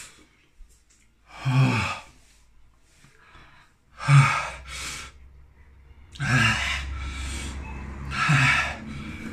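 A man gasping and breathing hard through his mouth, about five loud gasping breaths with some voice in them, spaced a second or two apart. They are his reaction to the burning heat of Carolina Reaper chilli peanuts.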